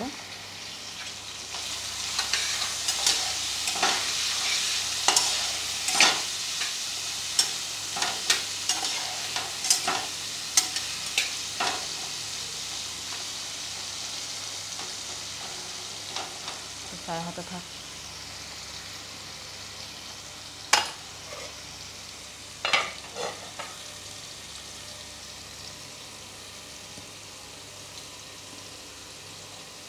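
Diced potatoes sizzling in hot oil with turmeric and salt in a pan, stirred with a spatula that scrapes and knocks against the pan through the first dozen seconds. The sizzle slowly fades, with a sharp clink about two-thirds of the way in and a few knocks soon after.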